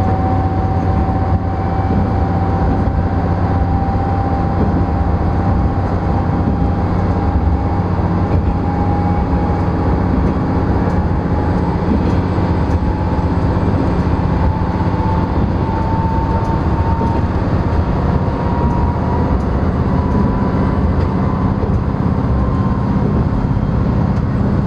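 NT100 diesel railcar running along the line: a steady low engine and running rumble, with a thin whine that slowly rises in pitch.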